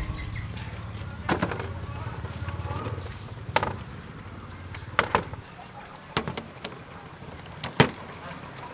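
Bottle gourds set down one at a time on a bamboo slat table: about five knocks spaced a second or two apart, the loudest near the end.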